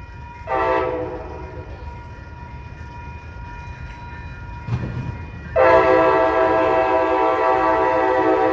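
Locomotive multi-chime air horn: a short blast about half a second in, then a long, loud blast starting about five and a half seconds in, over the low rumble of the train.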